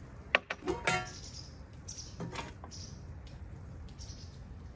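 Flat metal kebab skewers clinking against a metal serving tray: a quick run of sharp clinks ending in a ringing clang just under a second in, then another lighter clink about two seconds later.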